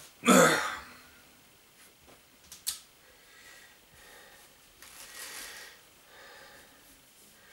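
Clothes rustling as garments are handled and sorted, with a short loud whoosh right at the start and a small sharp click about two and a half seconds in.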